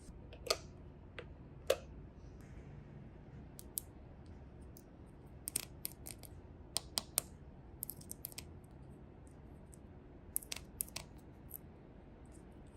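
Handling of a small plastic toy: irregular light clicks and taps, a few early on and then in quick clusters through the middle.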